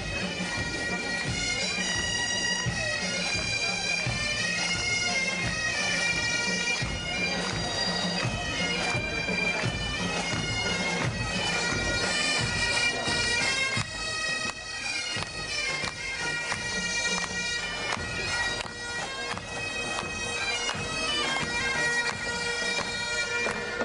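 A bagad, a Breton pipe band, playing a marching tune: bagpipes with steady drones under the melody, over repeated low drum beats.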